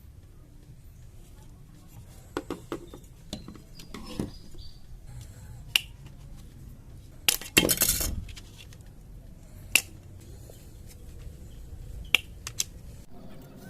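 Small hard plastic parts of a PC case fan clicking and clinking as they are handled during disassembly, with single sharp clicks spread out and a louder burst of rattling about halfway through.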